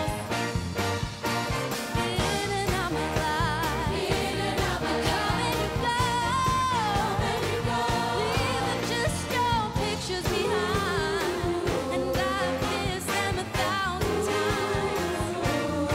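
Live pop music: a woman sings with vibrato over a band with a steady beat.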